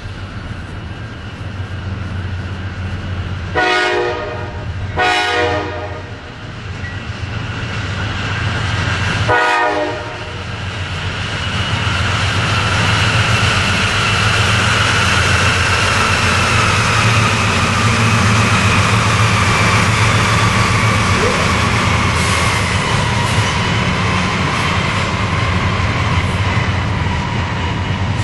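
A Norfolk Southern GE C40-9W diesel locomotive sounds its horn three times: two blasts close together, then a third a few seconds later. Its engine runs under the horn, and the train grows louder as it passes. A high wavering whine sits over the passing train, slowly falling in pitch.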